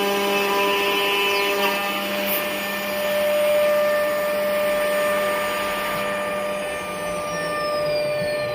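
Aluminium profile CNC drilling and milling machine running, its 9 kW spindle whining steadily over a hiss of machining. The whine shifts to a new pitch about two seconds in, and near the end a high whine falls steadily in pitch.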